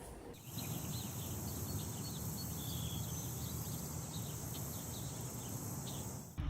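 Outdoor ambience: a steady, high insect drone with many short bird chirps over it and a low rumble underneath, starting and stopping abruptly.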